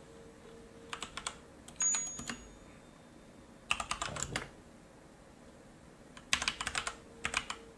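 Typing on a computer keyboard in several short bursts of keystrokes, with pauses between them.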